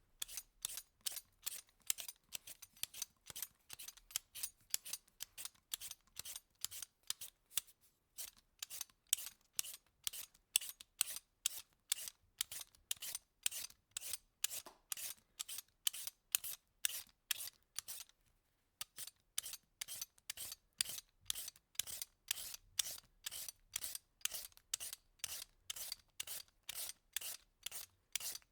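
Vegetable peeler scraping the skin off food in quick, repeated strokes, about two or three a second, with two short pauses along the way.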